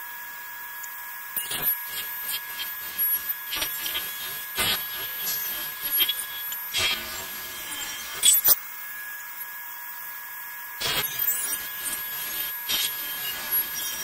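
Table saw and shop dust collector running with a steady high hum, while boards are pushed through the saw to rip thin trim strips; short knocks of wood being handled come and go.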